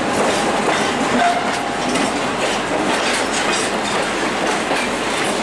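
Freight train of flatcars rolling past close by, its wheels clattering over the rail joints: a steady rumble with repeated irregular clicks.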